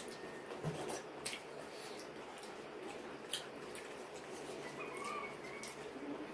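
Eating sounds of two people eating pitha roti and chicken curry with their hands: chewing and lip smacks, heard as scattered small clicks over a steady background hum.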